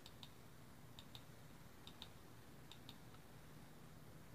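Faint mouse-button clicks: four pairs about a second apart, each a press and release, as the four digits of a verification code are tapped in on a phone keypad.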